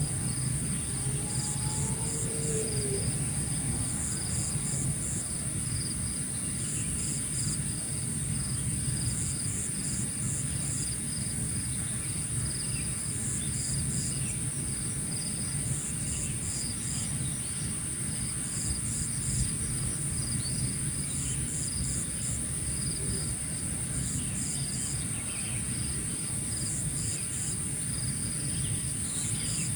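Insects chirring: one keeps up a continuous high trill while another calls in short pulsed bursts every couple of seconds. A low steady rumble lies underneath, with a few faint bird chirps here and there.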